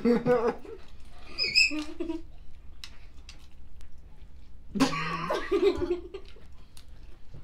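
Short bursts of laughter, one a high squeaky giggle, with scattered small clicks and cracks of crab shells being picked apart by hand between them.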